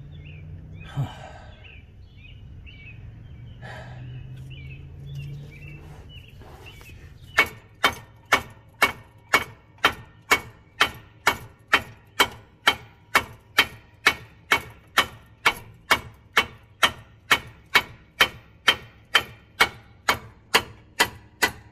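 About seven seconds in, a steady run of hammer blows on steel suspension parts begins, about two a second, each with a short metallic ring. The blows are working a seized lower ball joint loose from the control arm.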